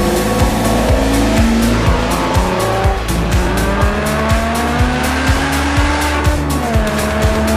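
A car's engine held at high revs, its pitch climbing slowly and then dropping near the end, with tyres squealing, over background music with a steady beat.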